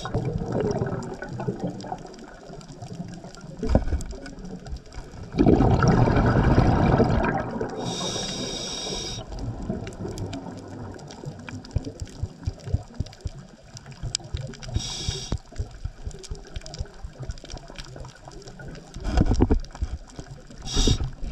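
Scuba diver's regulator breathing, heard underwater: short hissing inhalations three times and two loud gushes of exhaled bubbles, with scattered clicks between breaths.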